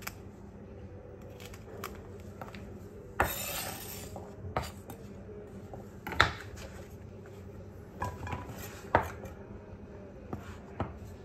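Chef's knife slicing okra on a wooden cutting board: about half a dozen sharp, irregular knocks of the blade on the board, one of them about three seconds in trailing into a short scrape.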